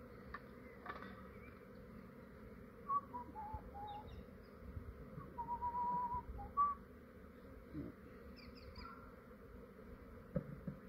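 Honey bees of a swarm buzzing in a low, steady hum around a swarm box. A series of short whistled notes, one of them wavering, comes a few seconds in, with a few brief high chirps.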